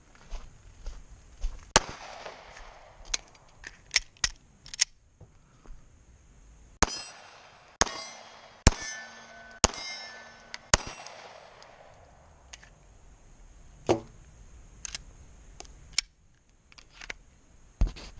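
Glock 43 9mm subcompact pistol firing about a dozen shots at uneven spacing, some close together, with a ringing tone hanging on after several shots in the middle.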